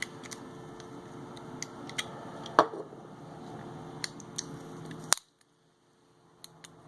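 Small scattered clicks and scrapes of an LG G5 smartphone's internal plastic parts being handled and peeled off by hand, with one sharper click about two and a half seconds in. The sound cuts out completely for about a second and a half just after five seconds.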